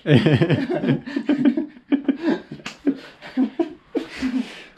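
A man laughing, with a few short bits of talk mixed in.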